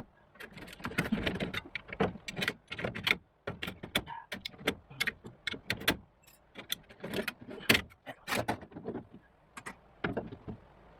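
Irregular metallic clinks, knocks and scrapes of hand work on a rusted vehicle body, loose metal being handled and moved, many sharp hits in quick succession with short pauses between.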